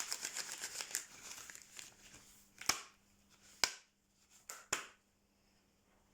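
Yellow rubber gloves being handled, with a rapid crinkling and rubbing that fades out, followed by four sharp clicks a second or so apart.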